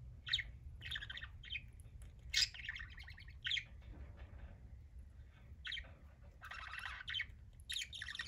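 Budgerigar chirping and chattering in short, scattered bursts, busiest a little past halfway, over a low steady hum.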